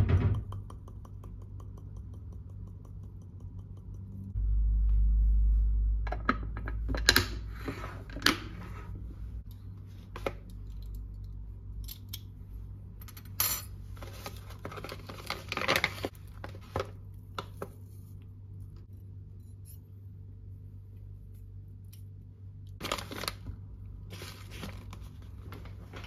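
Scattered clinks, taps and knocks of small hard objects being handled, over a steady low hum. There is a sharp knock at the very start and a low rumble for about two seconds starting about four seconds in.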